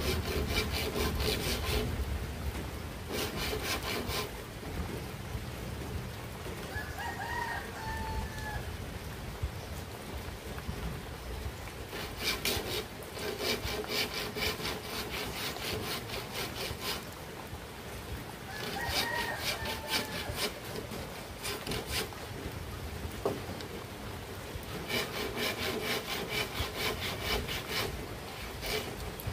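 A hand saw cutting through a bamboo pole in bouts of quick back-and-forth strokes, with pauses between the bouts. A rooster crows twice, about seven seconds in and again around nineteen seconds.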